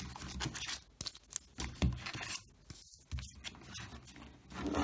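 Baseball card packs and cards being handled: scattered scratches, scrapes and light clicks of card stock and pack wrapper being pulled and shuffled.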